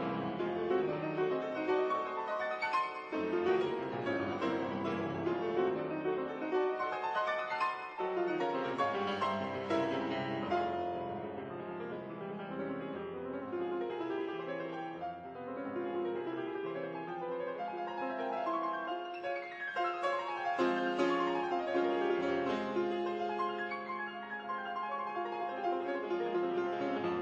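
Background piano music, with flowing runs of notes and a sweeping run down about two-thirds of the way through.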